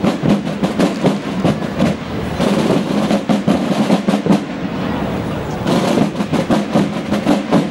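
Military drums playing a rapid marching cadence, with dense, closely spaced strikes and rolls.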